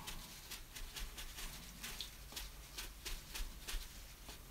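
A folded tissue dabbed against damp watercolour paper in gentle taps, several soft ticks a second, unevenly spaced, as wet paint is lifted out of the painting.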